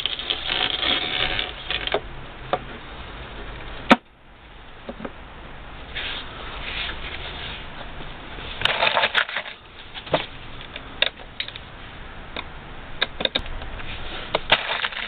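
Scraping and rustling of plastic as a new heater core is pushed down into a plastic heater box housing, then scattered sharp clicks and taps of the plastic parts and a screwdriver being handled.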